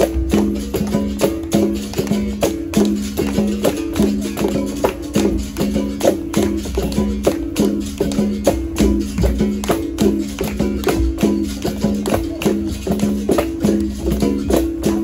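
Capoeira roda music: a berimbau sounding two alternating notes with the shake of its caxixi rattle, over the steady beat of a pandeiro tambourine, in an even, driving rhythm.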